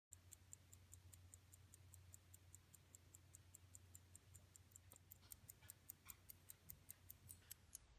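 1903 Waltham pocket watch ticking faintly and steadily, about five ticks a second. About five seconds in the ticks get louder and fuller.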